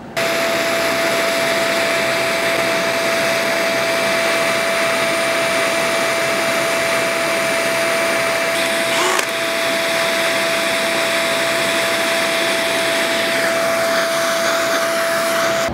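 Shop vacuum running steadily with one strong whine, its nozzle held at the hole to suck up metal shavings while a cordless drill bores through the roof sheet metal; the sound shifts briefly about halfway through and again near the end.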